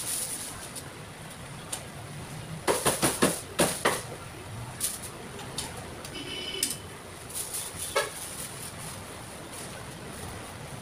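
Sharp knocks and clatter from work at a roast-chicken stall counter: a quick run of about six strokes about three seconds in, then a few single clicks and a brief high squeak, over a steady background hum.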